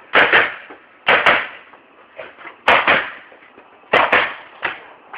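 Paintball gun firing four shots of compressed air, a second to a second and a half apart, each a sharp pop with a quick second pop right after it.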